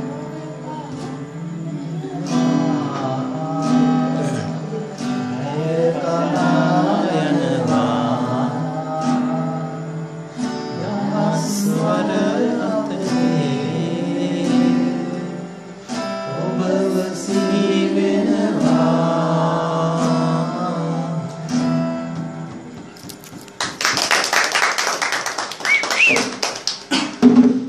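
A young woman singing to her own strummed acoustic guitar. The song stops a few seconds before the end, followed by about four seconds of clapping.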